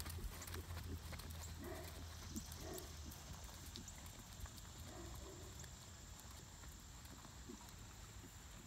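Faint hoofbeats of a horse trotting on arena sand, fading as it moves away, over a low steady rumble.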